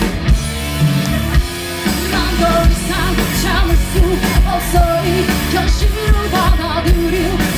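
Live rock band playing: drums and keyboards with a female lead singer, whose vocal comes back in about two seconds in.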